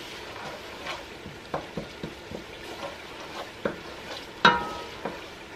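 A long-handled spoon stirring food in a pot on the stove, knocking lightly and unevenly against the pot over a faint sizzle of cooking on a low heat. One louder knock with a short ring comes near the end.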